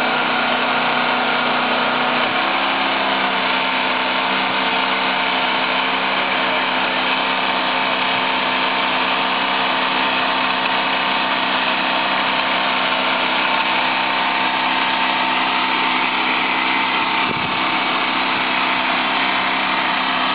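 Winch motor running steadily under load, hauling a tall catapult tower upright, with a slight change in its pitch about two seconds in.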